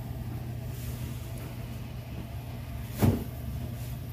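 Steady low hum over room noise, with a single short knock about three seconds in.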